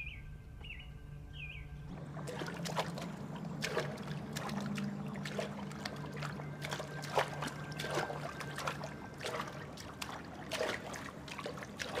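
Birds chirping a few times for about two seconds. Then irregular watery drips, small splashes and clicks over a low steady drone, like the ambience of a wet cave.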